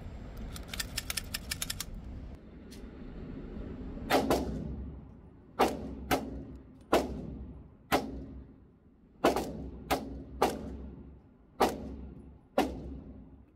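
Hi-Point CF380 .380 pistol firing on an indoor range: about ten shots at an uneven pace, each with a short ringing tail. Near the start, a quick run of small metallic clicks as the pistol is handled after a failure to eject.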